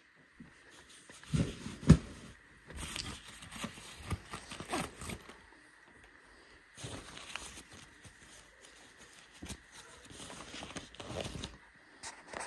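Handling noise: irregular rustling, scraping and soft knocks, with one sharp thump about two seconds in.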